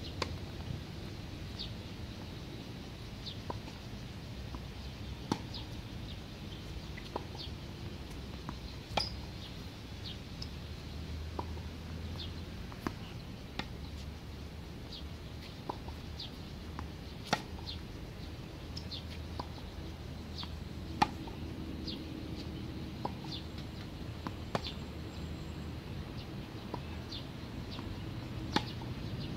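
Tennis balls struck back and forth in a baseline rally on a hard court: sharp racket pops, the loudest about every four seconds from the near player's strokes, with fainter hits and bounces in between.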